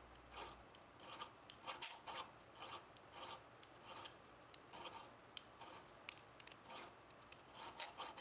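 Steel hand file rasping across a round aluminium bar clamped in a vise, in faint, quick, repeated strokes.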